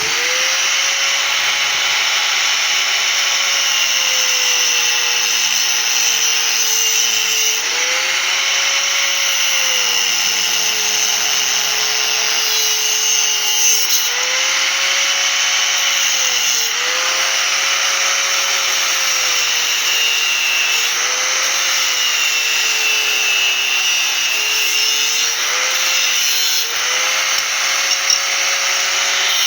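Electric power tool switching on and cutting square steel pipe. The motor's pitch sags each time the blade bites and recovers between passes, over a steady harsh hiss of the cut.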